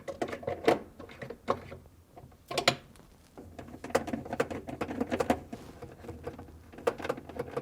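Irregular clicks and taps of a 1/4-inch nut driver working against the plastic ice maker while its two mounting screws are driven in, busiest in the middle of the stretch.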